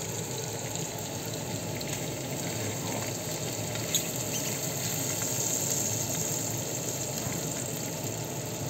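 Duck breasts and hot fat sizzling steadily in the pan, with a single light clink of a utensil about four seconds in.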